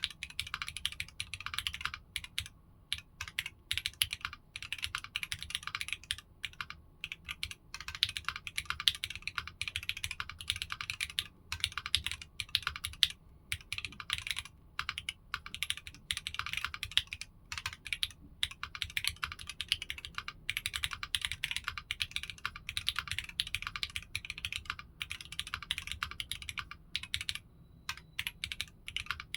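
Continuous typing on a foamless Tech Bear 8-TKL tenkeyless mechanical keyboard with Strawberry Jelly v2 linear switches (45 g springs), aluminium plate and 1.6 mm PCB, no plate, PCB or case foam: a steady run of fast key clicks and clacks with brief pauses between bursts.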